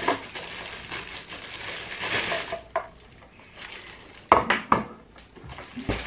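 Cardboard and packing material rustling as a sewing machine is unpacked from its box, then several sharp knocks in the second half as the machine is handled and lifted out.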